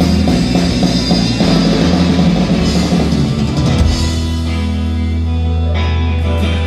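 Live rock band with two electric guitars, bass guitar and drum kit playing loudly. About four seconds in the drums stop and the guitars and bass ring on in a held chord.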